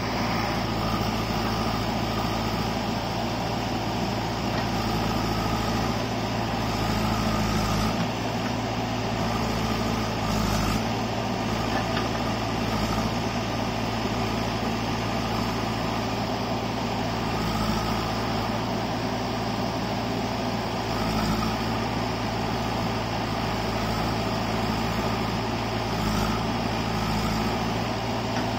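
JCB 3DX backhoe loader's diesel engine running steadily while the backhoe arm digs, its note swelling a little now and then.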